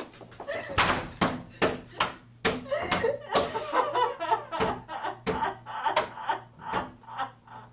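A woman pounding repeatedly on a wooden door with her hands, about two to three blows a second, with her voice crying out between some of the blows.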